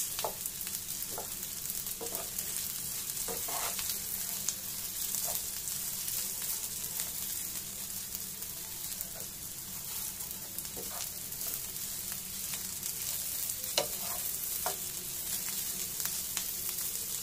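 Idli cubes, sliced onion and capsicum frying in oil in a pan with a steady sizzle. A wooden spatula scrapes and taps now and then as they are stirred.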